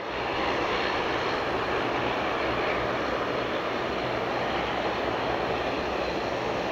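Airbus A321-211's CFM56-5B turbofan engines on final approach with landing gear down, a steady jet engine noise.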